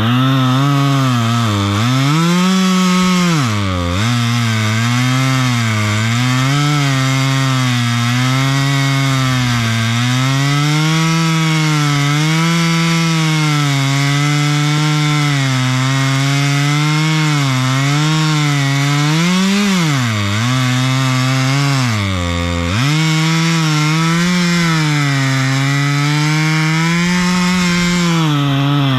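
Husqvarna T540 XP Mark III 40cc two-stroke top-handle chainsaw running at full throttle while cutting dry ash. The engine speed wavers under load and sags hard a few times (about four seconds in and twice near the twenty-second mark) as the saw is pushed into the cut and bogs down, then picks back up.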